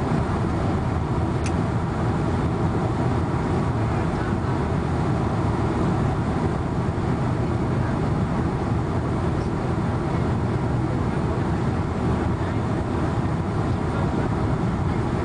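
Steady roar of jet engines and rushing air, heard from inside an airliner cabin.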